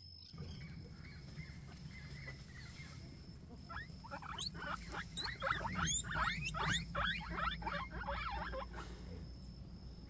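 Guinea pigs squeaking: a rapid run of short, high calls, each falling in pitch, starting a few seconds in and stopping near the end, over a steady low rumble.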